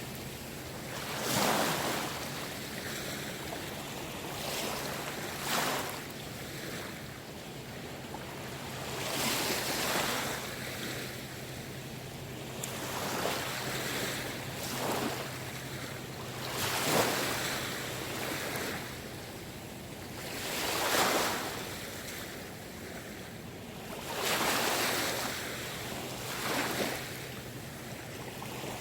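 Small sea waves washing onto the shore, one surge of noise every three to four seconds, with a faint steady low hum underneath.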